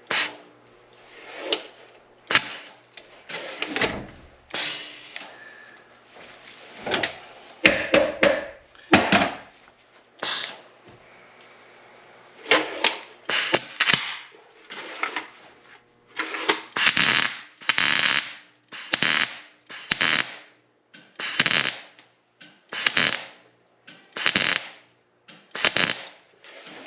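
Repeated strokes of hand-tool work on a seized, corroded steel stud, metal against metal. They come irregularly at first, then about once a second in the second half.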